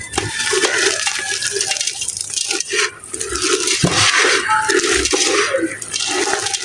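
Dry clay and gritty mud being crumbled: a dense, gritty crunching and crackling made of many small grains and crumbs breaking, loudest around the middle of the stretch.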